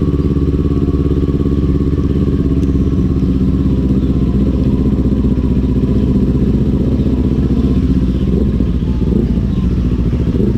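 Kawasaki Ninja 400's parallel-twin engine running at a steady, even speed while the motorcycle is ridden.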